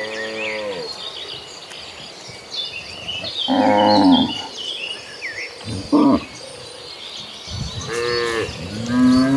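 A herd of cattle mooing: several separate moos from different cows, the loudest about three and a half seconds in, with shorter ones around six seconds and another rising near the end.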